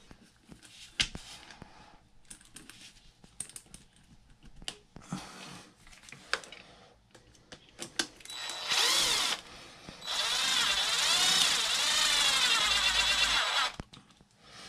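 Cordless power driver with a long hex bit running a screw into an RC truck's shock mount: a short run of about a second some eight seconds in, then a longer run of about three and a half seconds whose motor pitch wavers. Before that, light clicks of parts being handled.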